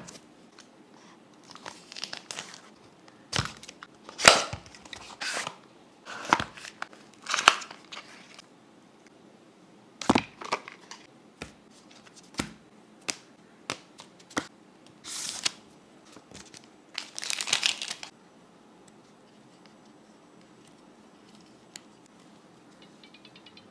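The retail packaging of boAt Immortal 121 earbuds being opened by hand: irregular bursts of tearing and crinkling with sharp clicks and knocks. It goes quiet for the last several seconds.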